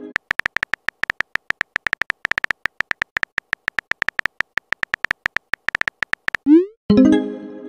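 Texting-app keyboard tap sounds: a rapid, even run of short electronic ticks as a message is typed letter by letter. Near the end the typing stops and the message is sent, with a short rising swoosh followed by a ringing chime.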